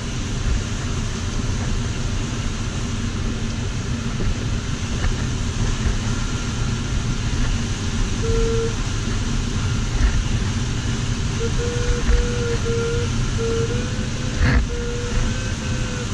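Steady rush of airflow over a glider's cockpit canopy, with the variometer's electronic tone sounding briefly about halfway through and then beeping in short pulses from about two-thirds in, its pitch wavering slightly. The beeping vario signals that the glider is climbing in lift.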